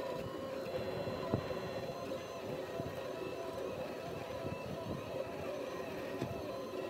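Ceramic 3D printer running as it extrudes clay: a steady mechanical hum with several held tones over a rough low rumble, and a single sharp click just over a second in.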